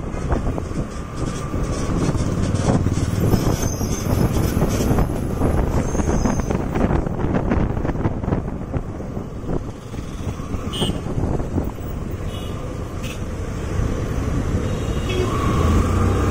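Motorcycle being ridden through town traffic: its engine running steadily under wind rush on the microphone, with other vehicles passing close by.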